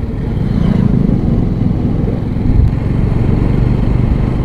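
Motorcycle engine running steadily while riding at cruising speed, with low wind and road rumble on the microphone.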